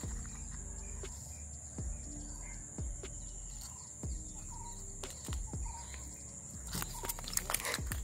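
Outdoor rural background with a steady high-pitched insect drone and a few faint bird chirps, broken by about five soft, dull knocks as the small hooked fish is handled on the concrete.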